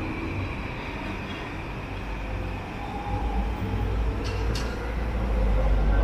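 A train approaching along the tracks, its low rumble growing louder from about halfway through. Two brief high-pitched squeaks come about four seconds in.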